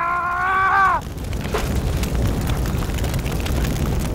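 A man's drawn-out anguished shout for about the first second, then a burning truck's fire: a steady low rumble with scattered crackles.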